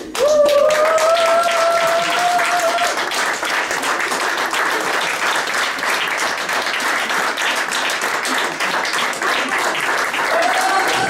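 Audience applauding at the curtain call, steady clapping throughout. Over it a single voice calls out in one long, slightly rising held note at the start, and again near the end.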